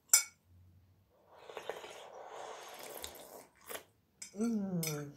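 Slurping sour-cream sauce off the edge of a tilted glass plate, a wet hiss lasting about two seconds, with a fork clinking against the plate at the start. Near the end comes a short hum that falls in pitch.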